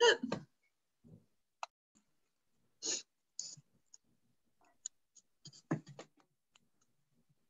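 Scattered short clicks and brief mouth or handling noises over a video-call line, with dead silence between them; a short snippet of voice opens it.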